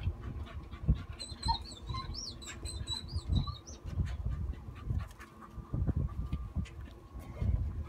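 Irregular low thuds and rumbles run throughout. A small bird sings a twittering, warbling phrase in the background, starting about a second in and lasting a couple of seconds.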